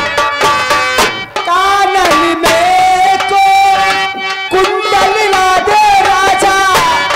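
Live folk-theatre song: a singer holds long, wavering notes over drums and a steady instrumental accompaniment. The first second or so is drumming alone, about three strokes a second, before the voice comes in.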